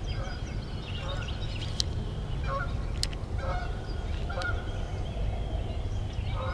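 A bird honking repeatedly in short calls about once a second, with a few sharp clicks in between.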